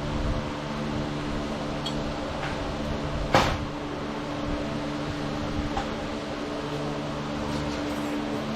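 Steady machine hum, like a fan or small motor running, with a single sharp click about three and a half seconds in.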